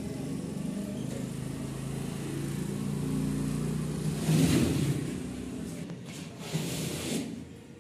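A motor vehicle engine passing by. Its steady hum grows louder to a peak a little past halfway and then fades, with a few short noises near the end.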